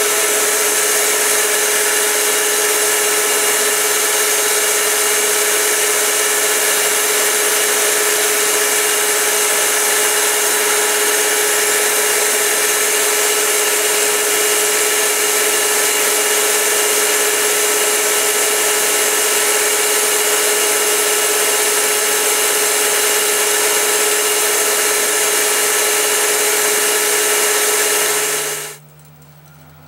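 Belt grinder running a leather stropping belt charged with buffing compound, a steady whine, while a Bowie knife's edge is stropped on it. The machine is switched off near the end and the noise stops abruptly.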